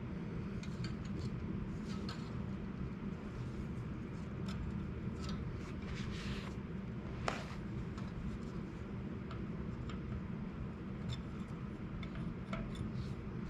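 Small metal clicks and clinks of tools and bicycle hub parts being handled, with one sharper click about seven seconds in, over a steady low hum.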